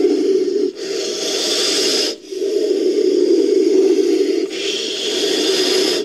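Made-up creature call for Ophiderpeton, an extinct snake-like amphibian, built from a Titanoboa sound effect. It gives long rasping hisses in which a low grating rasp alternates with a higher airy hiss, with a brief break about two seconds in.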